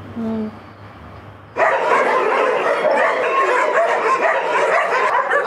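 A pack of dogs barking and yipping at once, many voices overlapping into a dense chorus that starts abruptly about a second and a half in.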